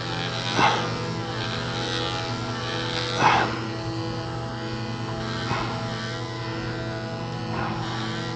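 Cordless electric dog clipper running with a steady buzz, getting briefly louder four times as the blades pass through the dog's leg coat.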